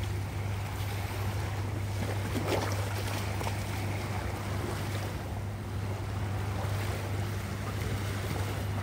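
A steady low motor hum that does not change, over light surf and wind on a calm beach.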